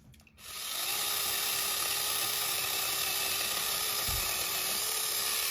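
Battery-powered mini chainsaw switching on about a third of a second in and running steadily, a high whirring hiss of motor and chain with a faint steady tone underneath.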